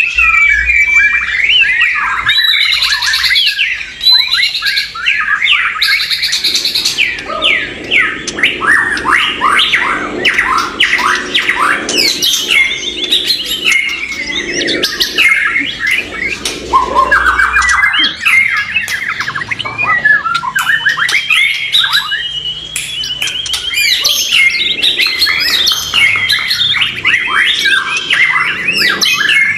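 White-rumped shamas (murai batu) singing: a dense, unbroken stream of overlapping rapid whistles, trills and harsh chattering notes.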